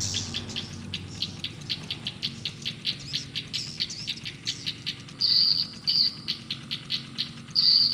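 Swiftlet calls from a swiftlet-house lure sound: fast, regular chirps, about five a second, joined from about five seconds in by short, high, steady whistles.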